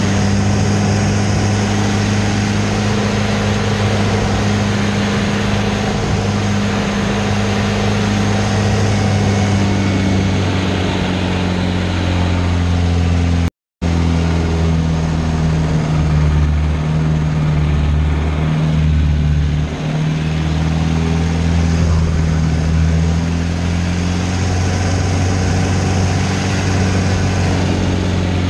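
Pitts Special aerobatic biplane's piston engine and propeller droning steadily, heard from inside the cockpit. The sound cuts out completely for a split second about halfway, and the engine note wavers and shifts in pitch soon after.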